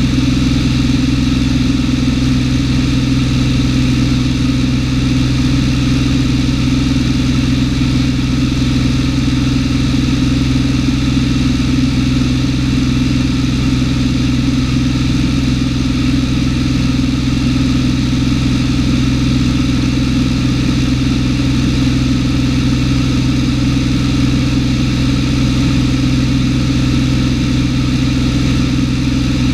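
Cessna 210's six-cylinder piston engine and propeller running steadily in flight, a constant drone heard inside the cabin.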